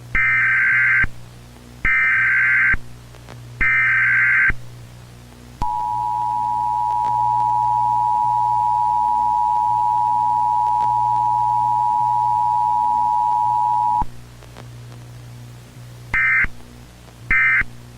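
Emergency Alert System tones. Three data-header bursts come about a second apart, then the two-tone attention signal (853 and 960 Hz) is held steady for about eight seconds. It cuts off, and three shorter data bursts follow near the end, all over a steady low hum.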